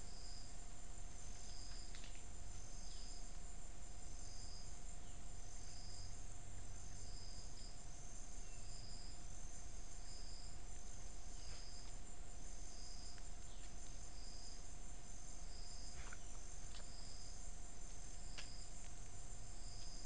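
Rainforest insect chorus: a cricket-like chirp pulsing about every second and a half over a steady high-pitched shrill, with a few faint short clicks now and then.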